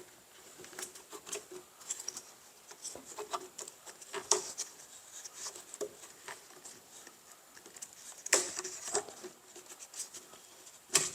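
Dust-collection hose and its strap being handled and fitted to a miter saw: scattered light clicks, taps and rustles, with a louder clatter about eight seconds in and a sharp knock near the end.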